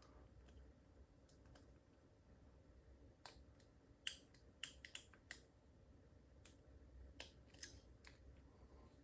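Faint, irregular small clicks of a lock pick working the pins of a Master Lock 410 lockout padlock under light tension, about a dozen ticks spread unevenly.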